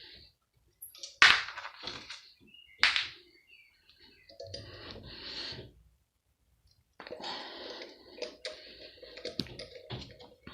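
Clanking and scraping of metal parts and tools as a large pump is dismantled: two sharp knocks about a second and three seconds in, then bouts of rattling with many small clicks.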